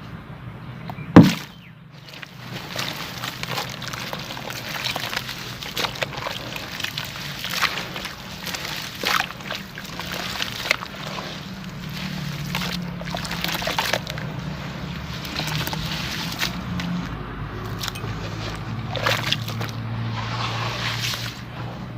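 Dry sand-cement chunks dipped in water and crumbling, with sloshing and irregular crackling. There is one sharp hit about a second in.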